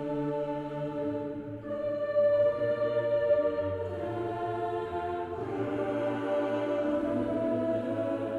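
Background music: sustained choral voices holding slow, drawn-out chords that change every second or two.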